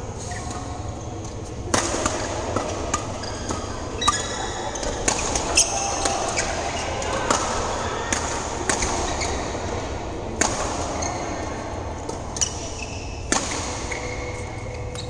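Badminton rackets striking a shuttlecock in a rally, sharp pops at an uneven pace of roughly one a second, with short high squeaks from shoes on the court floor between the hits.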